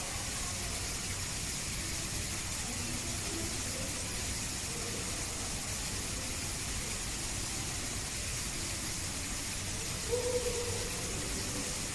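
Steady rushing hiss of background noise, with faint distant voices about ten seconds in.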